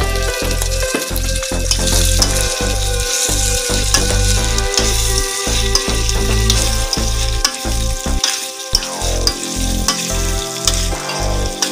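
Boiled monitor-lizard meat and ground spice paste sizzling in hot oil in a wok, stirred and scraped with a spatula, with repeated short clicks of the spatula against the pan.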